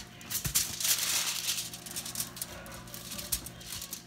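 Hands mashing and squeezing raw ground beef, an irregular wet crackling and squishing, thickest in the first second or two.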